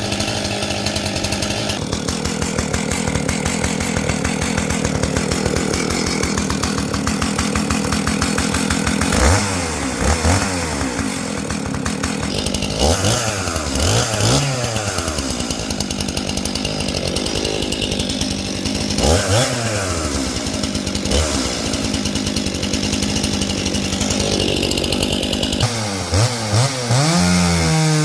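A 49cc Stihl chainsaw's two-stroke engine idling and being revved in short blips several times, each a quick rise and fall in pitch.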